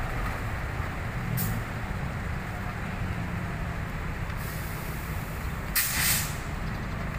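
Diesel locomotive engine rumbling low and steady as it moves slowly up to couple onto a rake of coaches. Air hisses twice: briefly about a second and a half in, and louder around six seconds in, typical of air brakes being applied or released.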